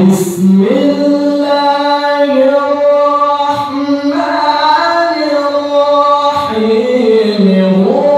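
A solo man's voice reciting in the melodic Qur'anic tilawah style through a handheld microphone: long held, ornamented notes that slide between pitches, with two brief breaks for breath.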